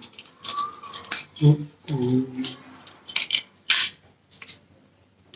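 Plastic parts of a Sony TV remote clicking and knocking as they are handled and pressed together, a series of separate sharp clicks. A brief murmured voice comes in near the middle.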